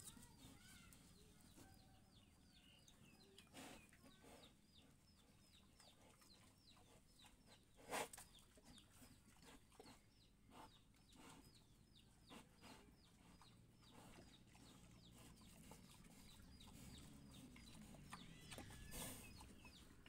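Faint farmyard bird chirping: short high chirps repeated several times a second throughout, with a few soft knocks, the sharpest about eight seconds in.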